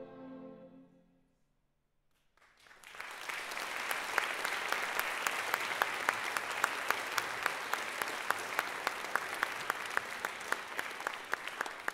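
A school concert band's final held chord dies away, then after a moment of silence the audience breaks into steady applause, with one nearby person's claps standing out about three times a second.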